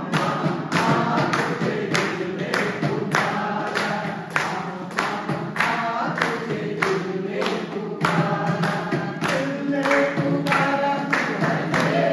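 A group of people singing a song together, clapping their hands in time about twice a second.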